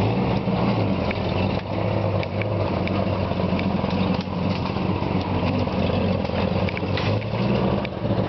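Off-road jeep engines running steadily at low speed, crawling through dense brush, with scattered snaps and knocks of branches against the vehicles.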